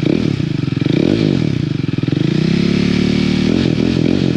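KTM RC 390's single-cylinder engine revved at a standstill through an aftermarket fake Akrapovic slip-on exhaust with its dB killer removed. It blips quickly a few times, then rises more slowly to a held higher rev in the middle, then blips again near the end.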